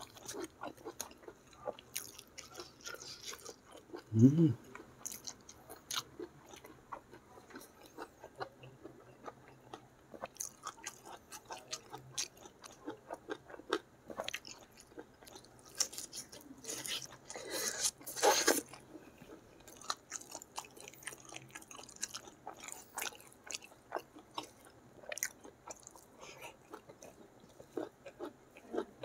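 Close-miked mouth sounds of a person eating chicken gulai and rice by hand: wet chewing, lip smacks and small crunches throughout. A short low vocal hum about four seconds in is the loudest moment, and a longer breathy hiss comes around seventeen to eighteen seconds in.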